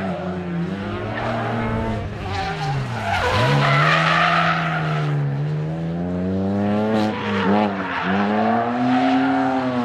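Rally car engine revving hard, its pitch climbing and dropping again and again through gear changes, with a sharp drop and climb about three seconds in. A hiss of tyre noise rises over it from about three to five seconds in.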